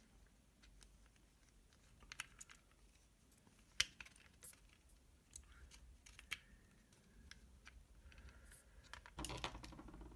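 Sparse small clicks and taps of a plastic RC transmitter housing and a potentiometer being handled and test-fitted together, the sharpest click about four seconds in. A short scraping rustle of the parts being moved follows near the end.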